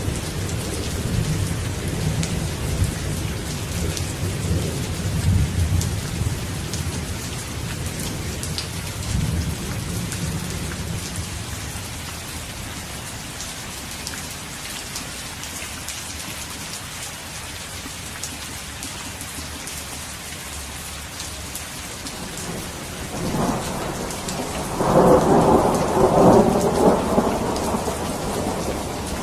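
Steady rain falling with thunder: a low rolling rumble over the first ten seconds or so fades, then a louder peal of thunder builds near the end.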